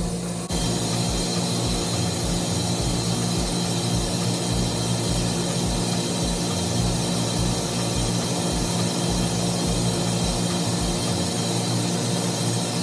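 Steady hum and hiss of steam-room machinery running (hot water heater plant and its pumps), with a constant low drone that stays level throughout; it comes in abruptly about half a second in.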